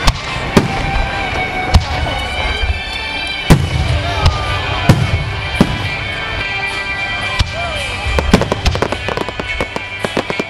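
Aerial fireworks shells bursting overhead, a loud bang every second or so, then a fast run of crackling in the last two seconds.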